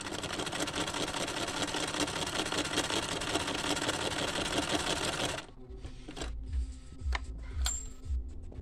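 Chaika 144A electric sewing machine running at a steady speed, needle stitching a seam in silk at a short stitch length; it stops abruptly about five seconds in, leaving a few sharp clicks and soft low knocks.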